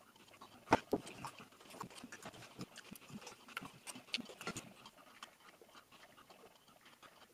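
Faint eating sounds: chewing and small mouth clicks, with knife and fork clicking and scraping on a ceramic plate as a pancake is cut. Scattered short clicks throughout, the loudest about three quarters of a second in.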